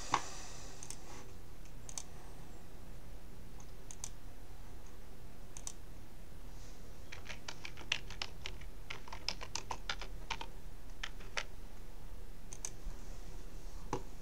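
Typing on a computer keyboard: a few scattered keystrokes, then quicker runs of key clicks in the second half.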